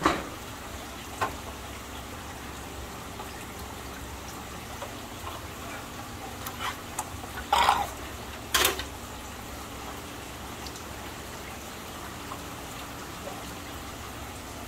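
Steady trickle of aquarium water over a low hum, broken by a few short knocks or splashes, the loudest two about seven and a half and eight and a half seconds in.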